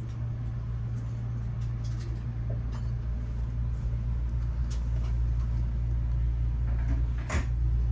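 Steady low rumble inside a Kintetsu Hinotori limited express car, with scattered light clicks and one sharp knock near the end.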